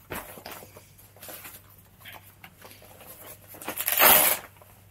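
Handling noises of a folding camping chair being assembled: the fabric seat rustling and its metal poles clicking and scraping. A louder rustling scrape comes about four seconds in and lasts about half a second.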